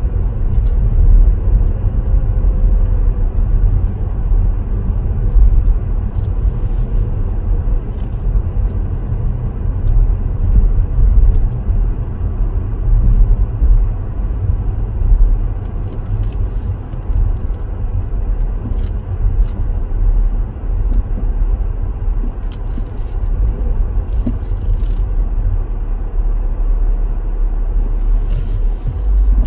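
Car driving along a road: a steady low rumble of engine and road noise, with a few faint ticks.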